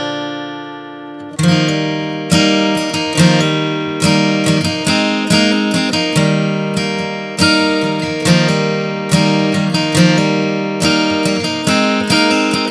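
Background music of acoustic guitar strumming chords. One chord rings and fades for about the first second and a half, then a new strum comes roughly every second.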